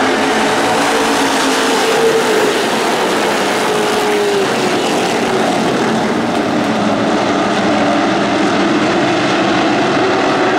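A field of NASCAR Late Model stock cars racing together on a short oval, their V8 engines blending into one loud, unbroken wall of engine noise whose pitch drifts as the cars pass.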